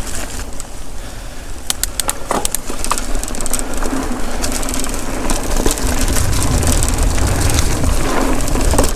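Mountain bike rolling over leaf-covered dirt singletrack: a steady rumble of tyres on dirt and dry leaves, with sharp clicks and rattles from the bike about two seconds in. The rumble grows louder toward the end.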